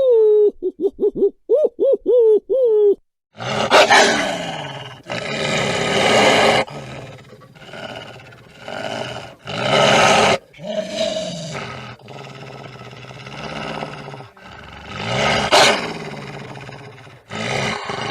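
Owl hoots in a quick series of short rising-and-falling notes for about the first three seconds, then a big cat, lion or tiger, roars and growls in a string of long calls, one after another.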